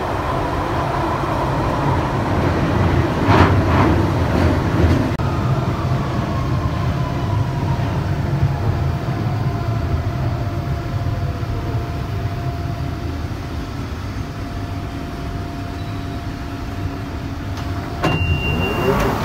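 London Underground Central line 1992-stock train heard from inside the carriage, rumbling as it slows into a station, with a few clacks early on and a whine that falls in pitch and then holds steady. Near the end comes a sharp clack and a short high beep.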